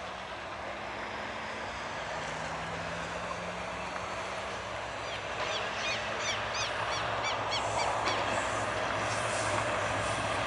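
EMD GT22 diesel locomotive approaching with its train, its engine hum growing steadily louder. A rapid series of short, high chirps comes in about five seconds in and lasts a few seconds.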